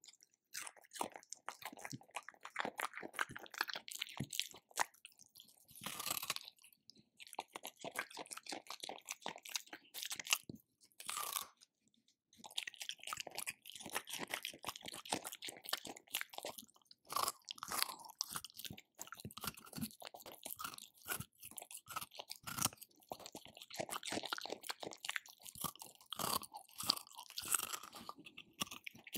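A dog crunching and chewing dry food in quick, irregular bites, broken by a few short pauses.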